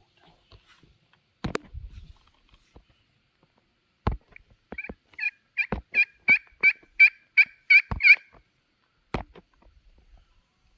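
Hunter's turkey call sounding a hen yelp series: about ten yelps, roughly three a second, growing louder, sent out to make a gobbler answer. A few sharp clicks sound before and after it.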